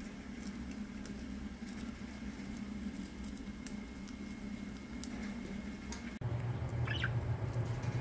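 Budgerigars in an aviary: many small clicks and scratches over a steady low hum, which steps up suddenly about six seconds in, with a short chirp about seven seconds in.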